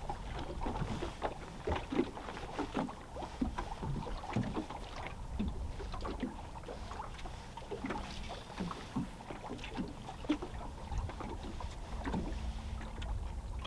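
Small waves lapping and slapping against a boat hull, with wind on the microphone and scattered small clicks and knocks.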